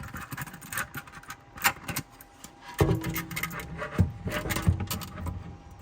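Hard 3D-printed PLA plastic parts clicking, tapping and rubbing against each other as the front section of a model tank is pushed onto the hull for a test fit, with a short squeak of plastic on plastic about three seconds in.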